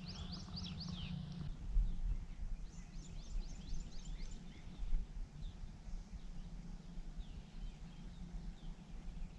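A songbird singing quick runs of repeated high, slurred notes, about five a second: one run ends a second and a half in, and a second run comes about a second later, with fainter notes after. A low steady rumble with a couple of dull low thumps runs underneath.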